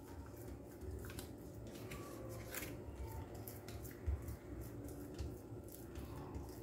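Faint soft pats, squelches and brushing sounds of wet hands pressing sticky jackfruit dough flat on a banana leaf, with small rustles of the leaf, over a low steady hum. One slightly louder knock comes about four seconds in.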